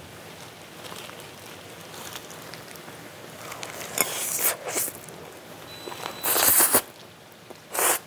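Kitchen handling noise over a steady low hiss: three short, loud rustling or shaking bursts, about four, six and nearly eight seconds in, as the japchae is finished and seasoned, with a click at the first.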